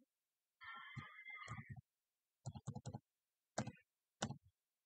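Several groups of sharp computer clicks as slides are paged back on screen, with a brief indistinct murmur about a second in.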